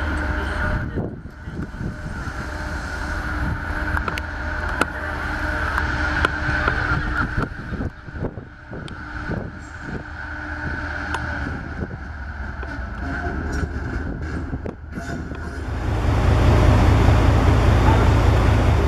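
Class 68 diesel locomotive running past with a steady whine and a series of clicks and knocks. About 16 s in it gives way to the deep, steady rumble of the locomotive's diesel engine idling close by.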